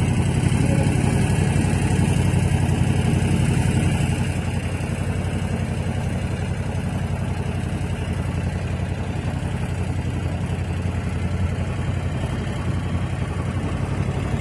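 Boat motor running steadily, easing off slightly about four seconds in.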